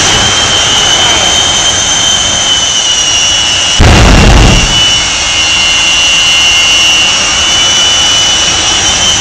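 Jet engines on a semi truck running with a steady high turbine whine over a rushing roar. About four seconds in, a sudden loud, deep blast comes as a fireball bursts from the exhaust.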